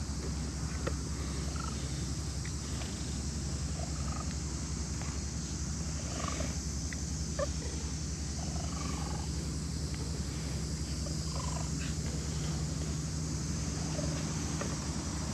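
Tabby-and-white cat purring as it is stroked: a steady low rumble, with faint short chirps scattered over it.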